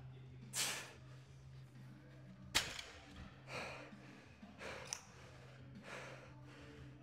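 A lifter breathing forcefully, about one hard breath a second, as during a set of barbell deadlifts, with one sharp knock about two and a half seconds in.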